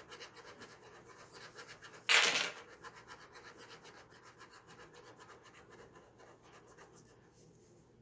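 Ballpoint pen scratching across notebook paper in quick, repeated hatching strokes, thinning out near the end. About two seconds in, a sudden loud burst of noise lasts about half a second and is the loudest thing heard.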